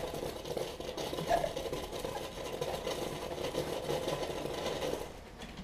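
Small tank novelty firework going off upside down in a metal pan, a steady rattling fizz that dies away about five seconds in.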